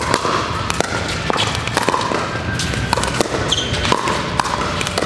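Pickleball paddles hitting a plastic ball, irregular sharp pops from several courts at once, echoing in a large gym hall.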